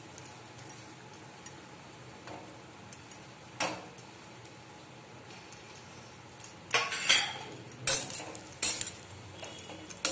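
Metal spatula scraping and clinking against a steel kadhai while stirring grated dry coconut for roasting, in quick strokes during the second half, after a single knock about three and a half seconds in. A faint steady hiss runs underneath.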